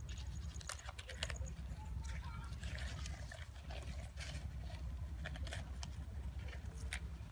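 Fresh banana leaf being unrolled by hand: scattered sharp crackles and rustles as the rolled leaf is peeled open, over a steady low rumble.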